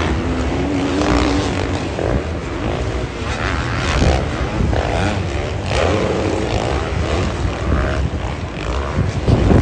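Several Supercross dirt bikes running on the stadium track, their engines revving up and down over one another over a steady rumble.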